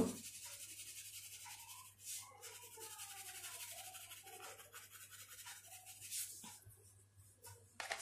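Crayon rubbing back and forth on paper, a faint, dry scratching as light blue is shaded in, over a steady low hum.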